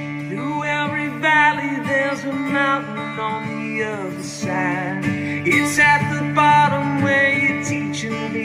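Acoustic guitar strummed, with a man singing over it.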